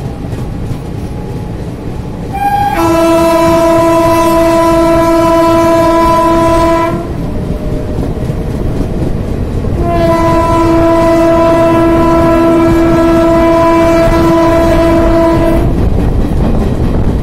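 Horn of the train's WAP-7 electric locomotive, heard from a coach behind it, sounding two long steady blasts. The first lasts about four and a half seconds and the second about six, over the constant rumble and clatter of the coaches running on the rails.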